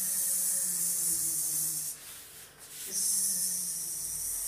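A woman's voice making two long buzzing 'zzz' sounds, each about two seconds, with a short break between them, imitating an aeroplane.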